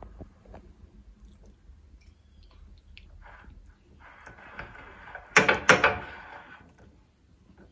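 A spoon stirring cream into melted chocolate in a ceramic cup: soft wet scraping and clicks, with two loud knocks of the spoon against the cup a little over five seconds in.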